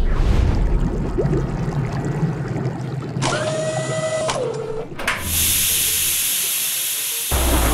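Sound-effect mix of carrier catapult machinery: mechanical clatter and a short whir about three seconds in, then a steady hiss of steam from about five seconds in, with a deep rumble coming in just before the end.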